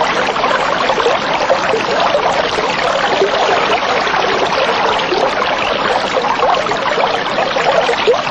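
Steady trickling and bubbling of aquarium water, a dense patter of tiny bubbles with no change in level.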